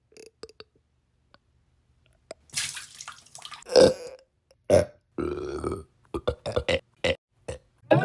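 A man burping into a microphone: after a couple of seconds of near quiet, several separate burps of different lengths, then a quick run of short burps near the end.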